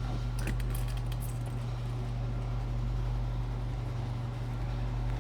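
Steady low electrical-type hum of background room noise, with a few faint clicks about half a second in.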